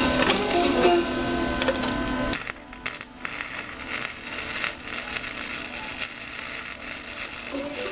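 Electric arc welding on steel: about two and a half seconds in the arc strikes, and a steady crackling sizzle with fine rapid ticks runs on.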